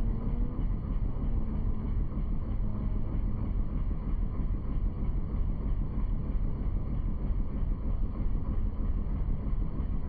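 Boat's engine running steadily, a continuous low rumble heard from on board.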